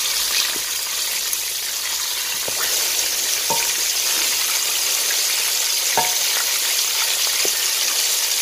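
Flour-coated chicken drumsticks deep-frying in hot oil in an aluminium kadhai over low heat: a steady sizzle. A wooden spatula turns the pieces, with a few light knocks against the pan, two of them with a brief ring.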